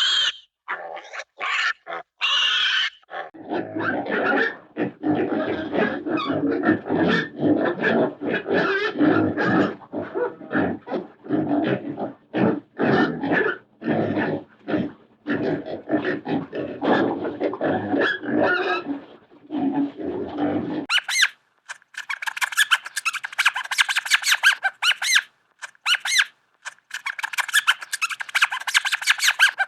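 Cartoon sound effects: a long run of choppy, animal-like grunting and growling, then, about two-thirds of the way through, a switch to a fast, high-pitched chattering sound.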